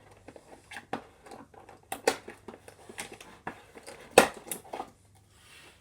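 Hard plastic handling: a run of irregular clicks, taps and knocks as a plastic Nerf blaster is picked up and moved about, with the loudest knock about four seconds in.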